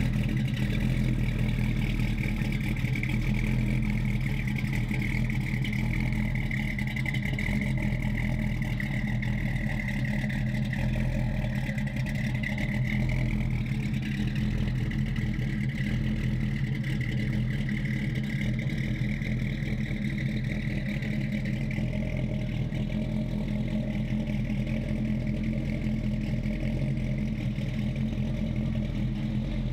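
The 1950 GMC pickup's 350 small-block V8, bored 60 over and fed by dual four-barrel carburettors, running at a low, steady speed as the truck drives slowly away.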